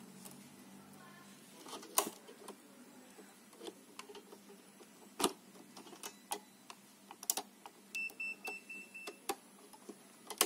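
Scattered small clicks and taps of a metal tool and small coil springs against a vacuum cleaner's plastic housing as the springs are hooked into place, with two sharper clicks about two and five seconds in. Near the end comes a short run of about five faint, evenly spaced high beeps.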